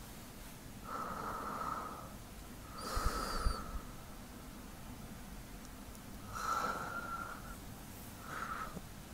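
A man's slow sleep breathing close to the microphone: four breaths of about a second each, spaced a couple of seconds apart, with a faint whistle running through each.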